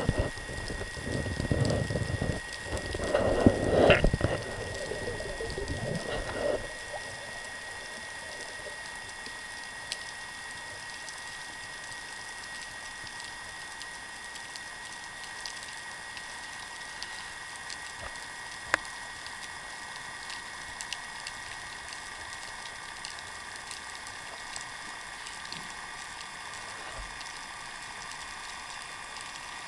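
Heard underwater: a steady hiss with scattered sharp clicks and crackles and a faint steady high tone. It follows a few seconds of loud, irregular rumbling noise at the start.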